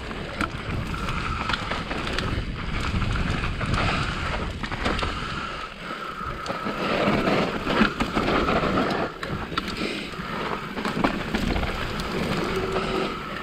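Specialized Enduro full-suspension mountain bike descending a loamy dirt trail: continuous tyre noise on the dirt with frequent rattles and knocks from the bike over bumps, and wind on the microphone. A thin steady high tone runs from about a second in.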